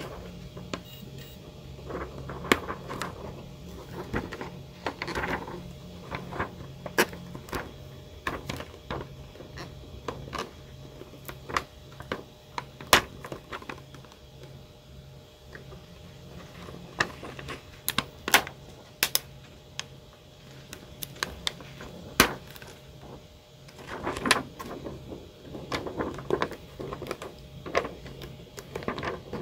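A clear plastic face-shield sheet being worked onto the tabs of a 3D-printed frame by hand: scattered sharp plastic clicks and snaps, with rustling of the flexing sheet in a few stretches.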